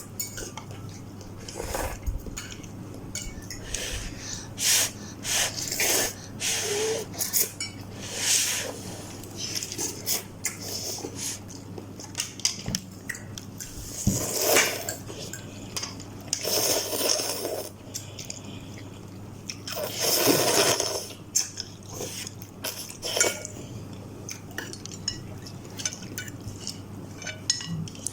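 Eating instant noodles from a bowl: a spoon or fork clinking against the dish, with several hissing slurps of about a second each, over a steady low hum.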